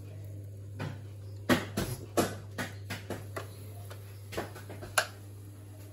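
Light plastic knocks and clicks as the lid of an electric waffle maker is swung shut and its plastic latch is snapped closed, ending in one sharp click about five seconds in. A low steady hum runs underneath.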